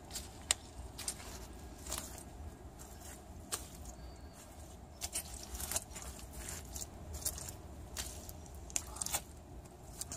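Footsteps squelching and crackling in thick mud, heard as irregular short clicks over a low rumble on the microphone.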